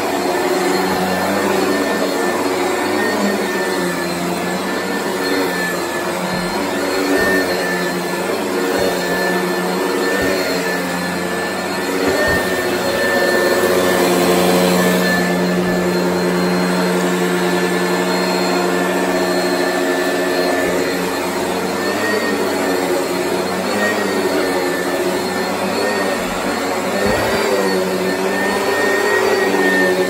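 Oreck upright vacuum cleaner running steadily over shag carpet: a motor hum with a high whine above it, its loudness rising and falling a little as it is pushed back and forth.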